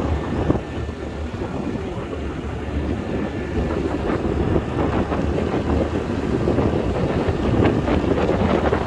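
Wind buffeting the microphone on a moving Honda Activa scooter, with the scooter's engine and tyres running steadily underneath.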